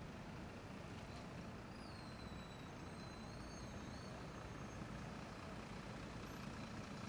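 Faint, steady hum of city traffic. From about two seconds in, a thin high squeal wavers for about two seconds.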